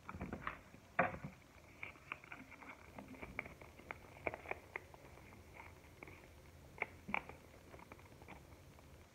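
Crinkling and rustling of a foil blind-bag packet and the folded paper leaflet inside it as they are handled and unfolded: a run of small irregular crackles, with louder crinkles about a second in and again about seven seconds in.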